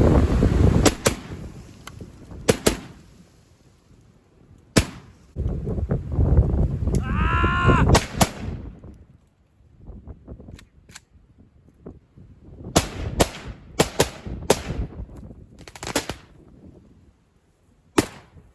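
Gunshots, about a dozen and a half, fired singly and in quick pairs at irregular intervals, with a cluster between about twelve and a half and sixteen seconds in. Heavy wind noise on the microphone fills the first second and again from about five to eight seconds, and a short wavering pitched sound comes just before eight seconds.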